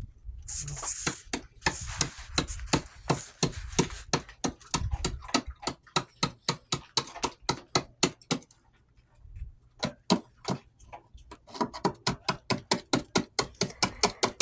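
Quick, regular knocks or crunches, about three or four a second, pausing for about a second a little past the middle.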